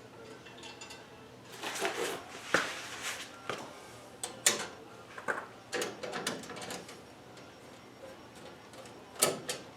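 Irregular metal clanks, clicks and knocks of bumper hardware and hand tools being worked while a chrome bumper is bolted on, with short quiet gaps between; the sharpest knocks come about two and a half, four and a half and nine seconds in.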